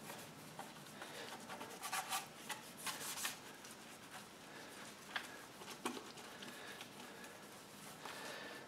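Faint rubbing and wiping on plastic tail-light trim as soap residue is wiped off with warm water, with a few stronger swishes about two and three seconds in and a couple of light taps later on.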